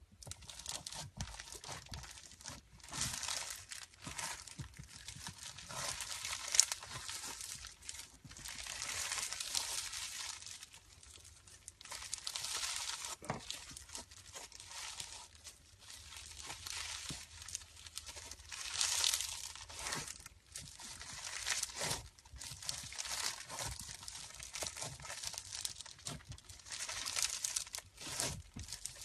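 Slime being squeezed and kneaded by hand: crackling and crinkling with sharp little clicks, coming in irregular waves every second or two.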